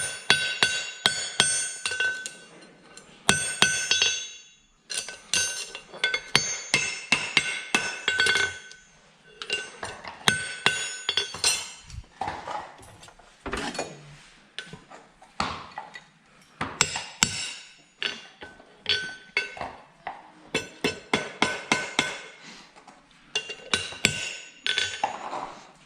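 Farrier's hammer striking metal again and again, often in quick runs of several blows, each blow leaving a high ringing tone: the sound of horseshoe work.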